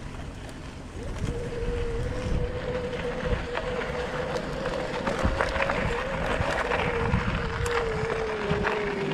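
Electric bike motor whining steadily under power, coming in about a second in and sinking slightly in pitch near the end, over the crunch and rattle of the tyres on a dirt trail and wind on the microphone.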